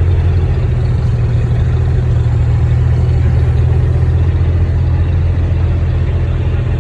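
Engine of a ride-on show cart idling steadily after pulling over, a deep, even hum with no change in speed.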